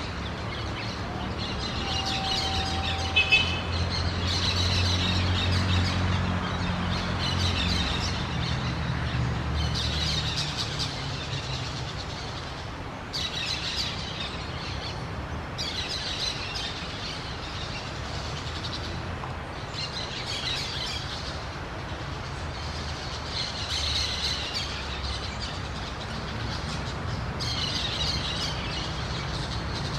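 Orange-chinned parakeets chattering in repeated bouts of high, rapid chirps, with a low rumble underneath that is strongest in the first several seconds.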